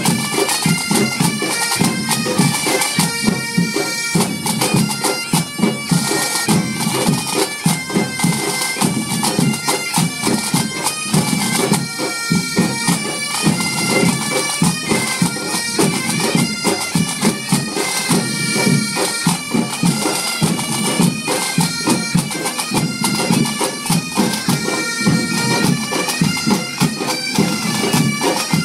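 A Breton bagad pipe band playing a tune: bagpipes holding the melody over a dense, steady beat of drums.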